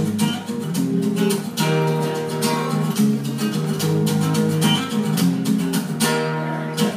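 Acoustic guitar strummed in a steady rhythm, playing chords live.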